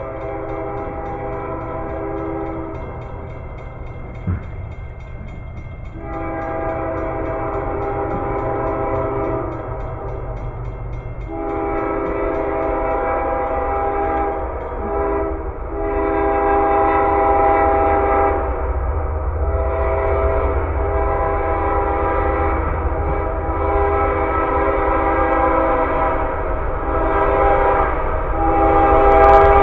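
Approaching train's locomotive air horn blowing a chord in a long series of blasts, some long and some short, growing louder as the train nears, over a rising low rumble of the train.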